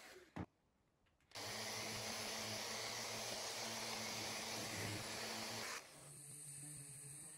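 Festool Rotex random-orbital sander running on a lacquered desk top. It cuts out just after the start with a single click, comes back about a second later and runs steadily. About six seconds in it gives way to a quieter, steady hum.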